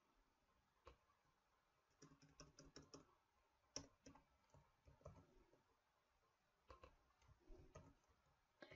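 Faint computer keyboard typing: irregular short runs of keystrokes with pauses between them.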